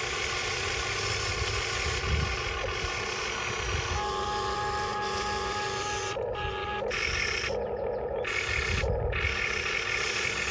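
Motors of a Diecast Masters 1:20 CAT 330D L radio-controlled excavator running as its boom, arm and bucket move. The sound is a steady mechanical whine that changes pitch in steps as different functions start and stop.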